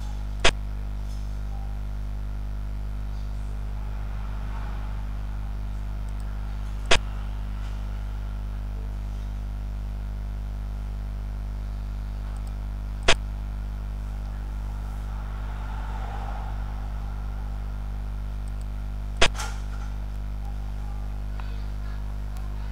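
Four sharp clicks about six seconds apart, the piece-placing sound effect of a xiangqi (Chinese chess) program as each move is played. They sit over a steady low background hum.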